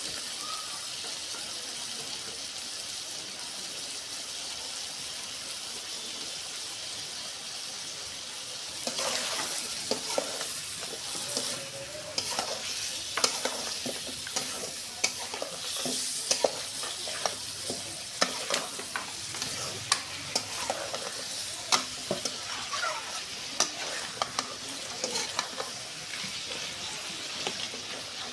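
Food sizzling in hot oil as it fries. From about nine seconds in it is stirred and turned, with repeated sharp scrapes and clicks of a utensil against the pan over the sizzle.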